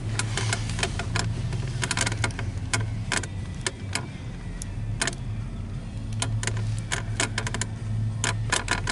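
Handling noise of a camcorder on a small tripod: many irregular sharp clicks and knocks as it is moved and set up, over a steady low hum.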